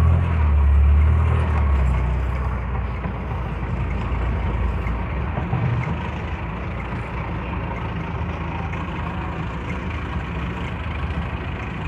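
Owner-type jeep's engine running with road noise, heard from inside the cabin as it drives slowly; a low rumble, louder for the first couple of seconds and then steady.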